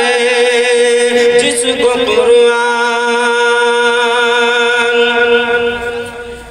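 A man chanting a naat, holding long drawn-out notes: the pitch shifts about two seconds in, then one long steady note is held for several seconds and fades near the end.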